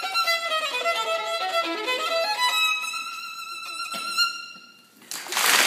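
Solo violin playing a quick run of notes that falls and then climbs, ending on a final note that dies away. About five seconds in, applause breaks out.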